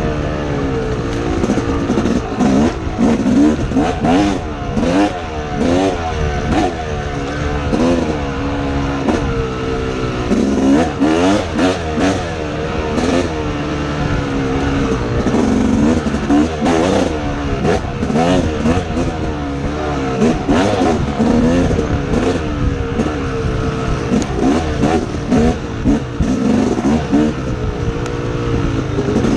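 Dirt bike engine revving up and down over and over as the throttle is worked along a rough trail, with frequent knocks and rattles from the bike over bumps.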